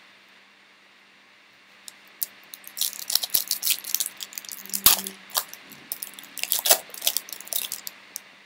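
Foil trading-card pack being torn open and crinkled in the hands: a run of sharp, high crackles starting about two seconds in, with one louder rip near the middle.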